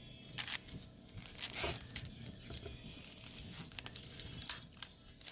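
Packaging rustling and crinkling as it is handled, in scattered short crackles, most likely the packet of pearl buttons.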